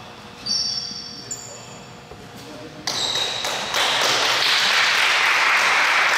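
Basketball shoes squeaking on a gym court floor, three short high squeaks in the first three seconds. From near the middle on, a steady rushing noise sets in and stays.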